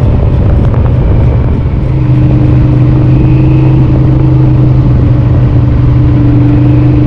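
Yamaha VMAX 1200's V4 engine running while the motorcycle is ridden, heard from the rider's seat. The loudness dips briefly about two seconds in, then the engine holds a steady note.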